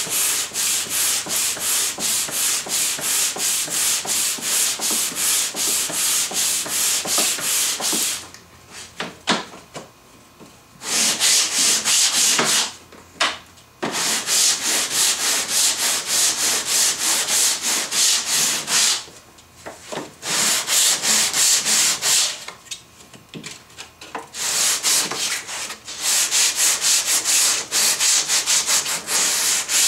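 Hand sanding the edges of a Lyptus hardwood board with a wooden sanding block loaded with VSM Vitex 120-grit E-weight paper. The block moves in rapid, even back-and-forth strokes, with a few short pauses between runs.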